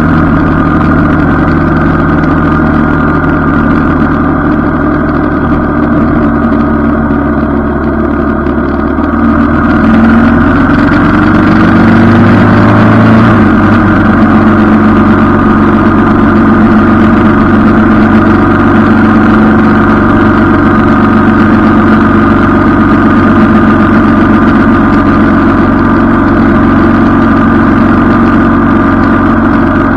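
Motorcycle engine running while riding, picked up by a handlebar-mounted camera. About ten seconds in, the engine pitch rises as the bike accelerates, then holds steady at the higher speed.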